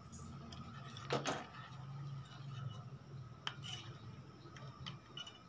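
Steel spoon stirring milk and jaggery in a steel pot, with a few light clinks of the spoon against the pot over a faint steady hum.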